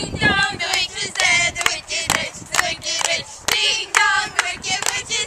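A group of girls' voices singing together, with hand claps keeping a beat of about two a second.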